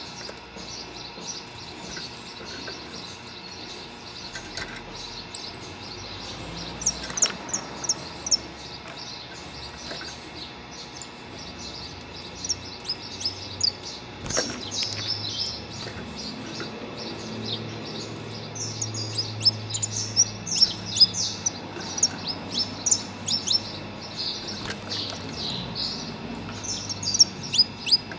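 Saffron finch song: clusters of quick, high, sharp chirps with short pauses between phrases. The male is stirred up by hearing other finches sing.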